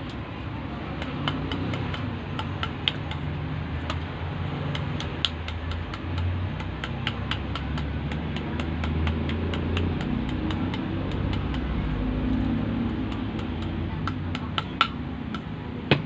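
Irregular light taps and clicks, with a few sharper knocks among them: a tool tapping the freshly inserted coils of a washing machine motor stator into shape so they fit the motor housing. A low steady rumble runs underneath.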